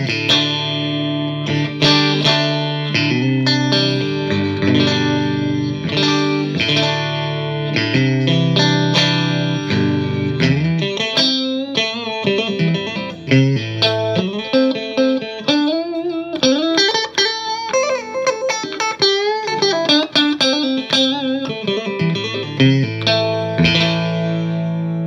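Stratocaster-style partscaster electric guitar on its neck and middle single-coil pickups together, played through a Marshall JVM210 2x12 combo amp. Strummed chords for the first ten seconds or so, then single-note lines with string bends, ending on a held, ringing chord.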